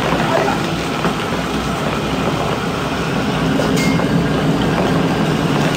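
Commercial gas wok burner running at full flame under a wok of boiling deep-frying oil: a loud, steady rumble with the oil bubbling hard. A single light metal clink comes near four seconds in.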